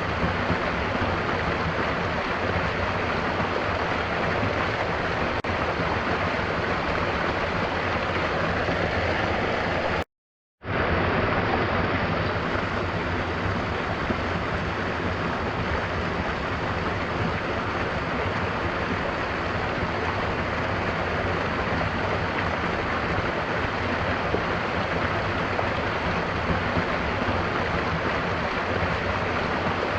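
Steady rushing of a waterfall mixed with gentle rain. It cuts out to silence for about half a second some ten seconds in, then resumes.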